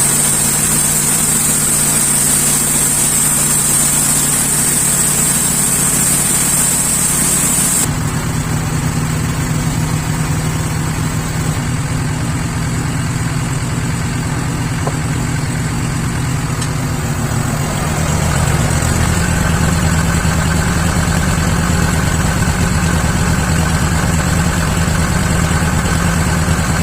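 Sawmill saw running with a steady motor hum, cutting timber with a high hiss that stops abruptly about eight seconds in. The machine keeps running, and its low hum deepens and grows stronger around eighteen seconds in.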